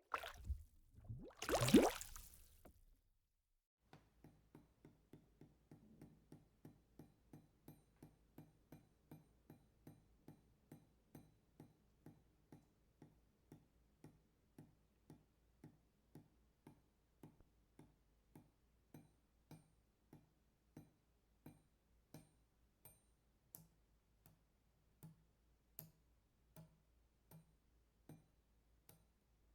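Water drops falling one by one in a steady rhythm of a little over two drips a second, each a short sharp tick. It follows a brief loud water sound that rises in pitch over about a second and cuts off around three seconds in.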